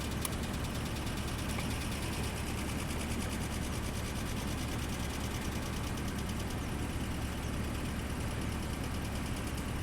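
Nissan RB20E inline-six engine idling steadily, with a rapid, even ticking from the valvetrain: the knock of its hydraulic lash adjusters (lifters).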